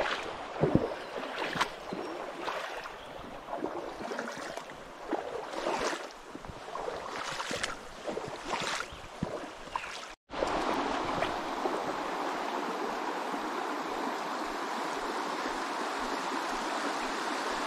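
Shallow creek water: uneven splashing and gurgling with short surges, then, after a break about ten seconds in, a steady rush of water flowing over rocks.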